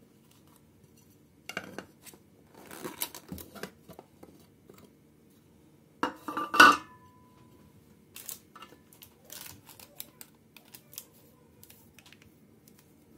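A metal bundt pan and a china plate clattering and knocking together as the baked cake is turned out of the pan onto the plate. There is one loud clank with a brief ring about six and a half seconds in, lighter taps after it, and a faint steady hum throughout.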